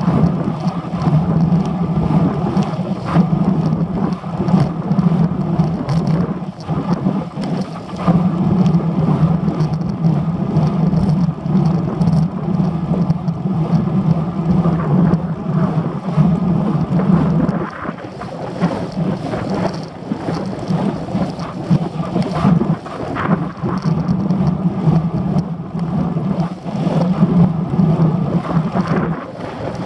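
Wind rushing over and buffeting the microphone of a camera mounted on a moving road bike, a loud, steady, blustery rumble.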